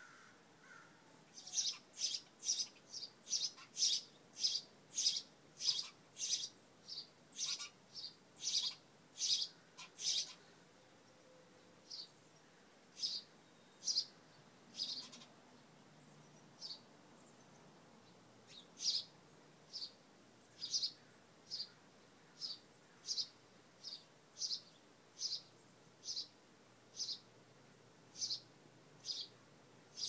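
A sparrow chirping: a long run of short, high single chirps, quick at first at about two a second, then slower at about one a second after a pause of a few seconds.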